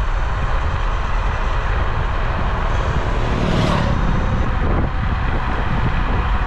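Wind buffeting the microphone and tyre and road rumble from an electric scooter riding at speed, loud and steady, with a brief louder swell about three and a half seconds in.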